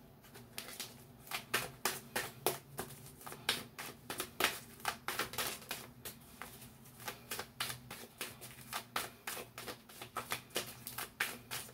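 Deck of tarot cards being shuffled by hand: a quick, uneven run of card slaps and clicks, several a second.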